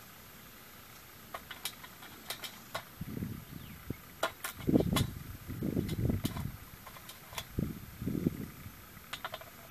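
A crow's beak pecking and tapping at food in a metal dish, making a scatter of sharp clicks. Low, muffled thumps and rumbles come in between, the loudest about five seconds in.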